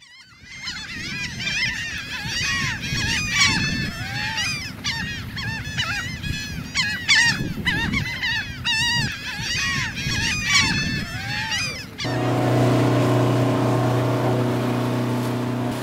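A laughing gull colony calling, many birds at once with overlapping calls. About twelve seconds in it cuts off suddenly to a boat's motor running steadily.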